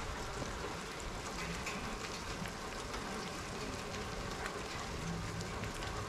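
Steady rain falling, an even hiss scattered with the small ticks of individual drops.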